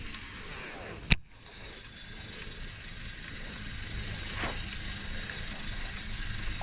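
A single sharp click about a second in, over a steady low background hiss and rumble, with a fainter tick later on.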